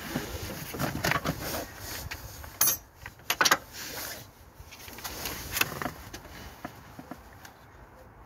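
Irregular metallic clinks and knocks of hand tools against engine parts, with jacket fabric rustling. The loudest clanks come a little under three seconds in and again about half a second later.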